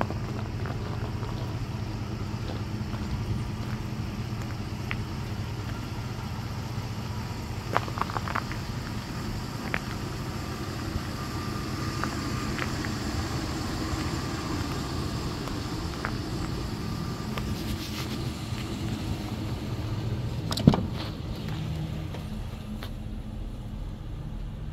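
Chevrolet Express box truck engine idling steadily with a low, even hum. Light clicks are scattered through, and there is one sharp, loud clack about three-quarters of the way in.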